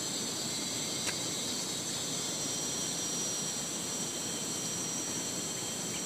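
Steady high-pitched drone of insects over a faint even hiss, with one faint tick about a second in.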